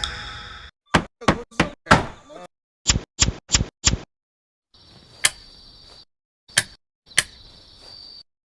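Hammer driving a nail: a series of sharp knocks, first a few irregular blows, then four quick evenly spaced strikes, then slower single blows with a faint hiss behind them.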